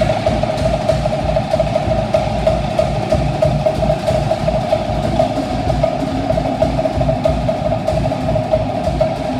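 Cook Islands drum ensemble playing a fast, continuous rhythm of rapid strokes on wooden slit drums, with a deep drum pulsing underneath.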